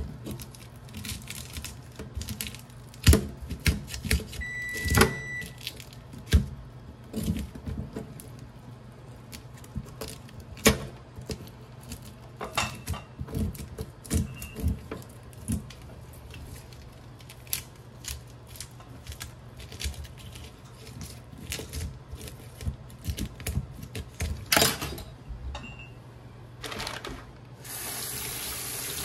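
A spoon scrapes the scales off a goatfish over a stainless-steel sink, making irregular scratchy clicks and taps throughout. Near the end the kitchen faucet is turned on and water runs steadily.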